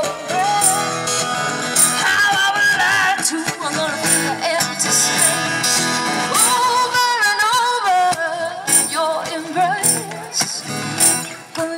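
Background song: a sung melody over instrumental backing with percussion.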